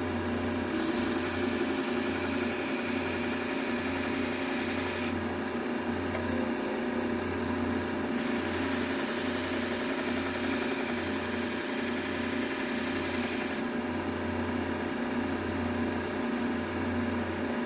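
Bucktool low-speed belt sander running steadily with a fine Trizact A30 belt. A knife blade is drawn across the belt twice, each pass adding a hiss of about four to five seconds: the edge is being refined after the coarse belt.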